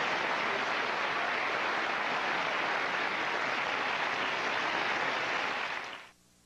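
Studio audience applauding steadily, fading out near the end.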